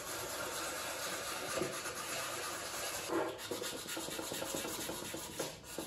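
A blade scraping and then a sanding stick rubbing back and forth along the filled seam of a plastic model ship hull, a steady rough rasping that dips briefly near the end.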